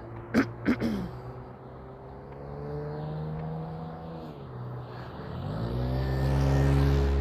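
Road traffic: a motor vehicle's engine holds a steady note, then drops away about four seconds in, and a louder vehicle accelerates close by, its engine note rising toward the end. A few sharp knocks come just under a second in.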